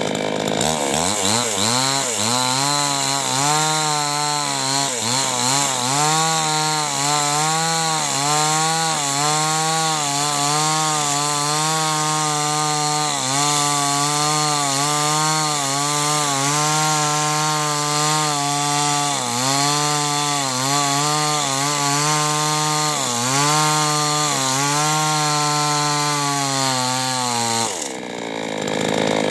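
Two-stroke chainsaw cutting wood. It revs up to full throttle just after the start, and the pitch keeps dipping briefly as the chain bites into the wood. It drops back toward idle near the end.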